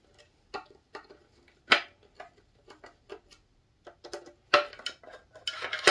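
Irregular light clicks and metallic clinks of a hex-tip screwdriver working the set screws of a steel connector bar in an aluminium track-saw guide rail, loosening them; two sharper knocks stand out, about a second and a half in and near the end.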